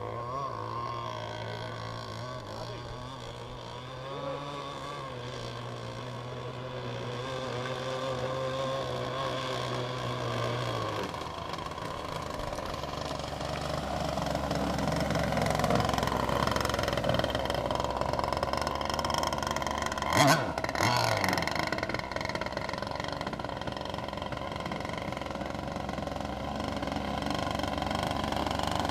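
Two-stroke gas engine of a 1/5 scale RC boat running, its pitch rising and falling as it speeds up and eases off. A sharp knock stands out about two-thirds of the way through.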